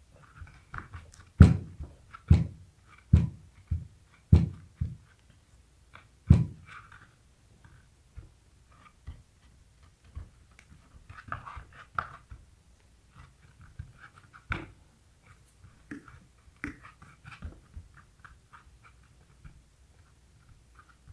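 Hands pressing and rubbing clear grip tape down onto a skateboard deck to push out bubbles. Dull thumps of the palms and deck against the table come in a quick run over the first few seconds, with one more past the middle, between softer scuffing and rustling of the tape and plastic sheet.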